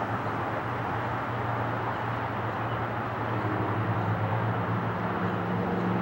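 Boeing 767 jet airliner on approach with landing gear down, its two turbofan engines giving a steady rumble with a low hum beneath, and a few higher hum tones joining in during the second half.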